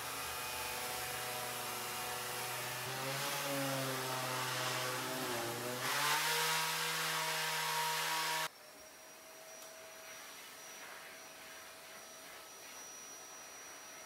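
Electric sheet sander running on a wooden countertop. Its motor pitch wavers, then jumps higher and louder about six seconds in, before cutting off abruptly. After that there is a faint steady hum with a thin high whine.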